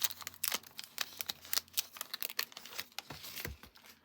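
Baseball card pack wrapper crinkling and tearing as it is ripped open by hand, a rapid run of crackles that thins out near the end.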